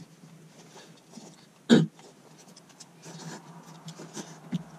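Small clicks and scrapes of people eating from bowls with utensils, with one sharp knock a little under two seconds in and a softer one near the end.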